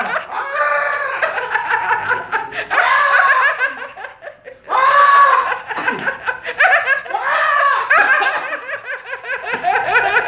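Hearty laughter in bursts, dipping briefly about four seconds in before picking up again.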